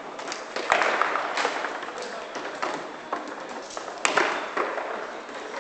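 Foosball table in play: sharp knocks and clacks of the ball against the plastic players and the rods, with louder strikes about a second in and at about four seconds, over low background noise.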